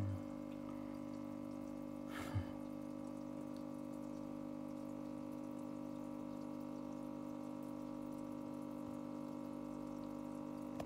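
Small aquarium's air-driven sponge filter running: a steady electric hum from the pump with water bubbling. There is one brief knock about two seconds in.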